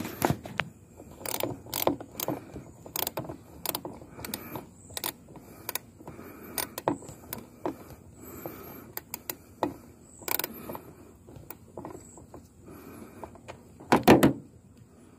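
Irregular metal clicks and knocks from hand tools working at an old boat seat's fastenings, about one or two a second, with a louder clatter near the end.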